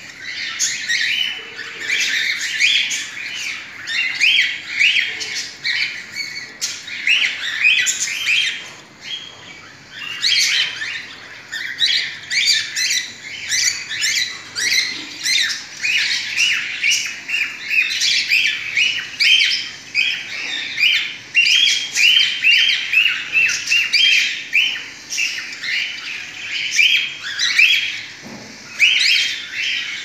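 Cockatiels calling: a dense, continuous run of short, repeated squawking calls, several a second, with a brief lull about a third of the way through.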